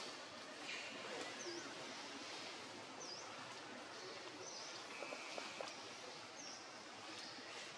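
Forest ambience: a steady hiss of background noise, with a bird repeating a short, high chirp about every one to two seconds.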